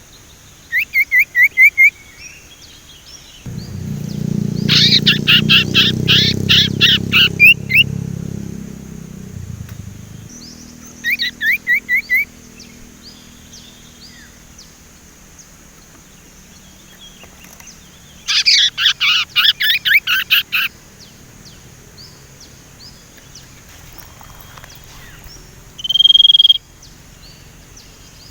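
A sirtu songbird chattering (ngeriwik): several bursts of quick, evenly repeated notes, the loudest about five and nineteen seconds in, then a single held whistle near the end. A low rumble sits underneath from about three to ten seconds in.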